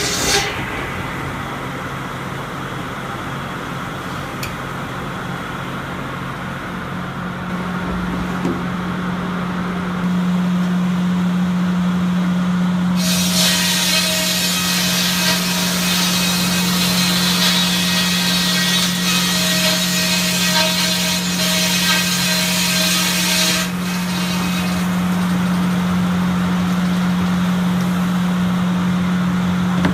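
Farm sawmill's circular saw running with a steady hum, then its sharp blade cutting through a log for about ten seconds from about a third of the way in, after which it drops back to the running hum.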